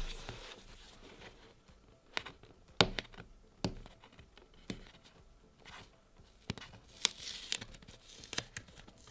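Cardboard product box being handled and turned over: scattered light knocks and clicks, with a short scraping rustle about seven seconds in.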